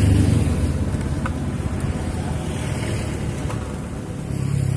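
Wind buffeting the microphone, a steady low rumble, with a low hum coming in near the end.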